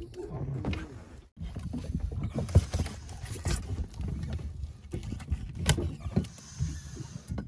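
Small-boat ambience: a steady low wash of water moving against the hull with wind buffeting the microphone, broken by a few sharp knocks and clicks.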